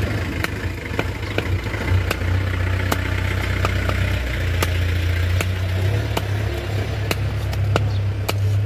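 Knife blade scraping scales off a large fish on a wooden block in quick, regular strokes, heard as about two to three sharp ticks a second. Under it runs a steady, low engine hum, like a motor idling.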